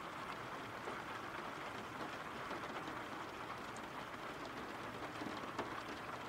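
Steady rain falling on a surface, an even hiss dotted with scattered drop ticks.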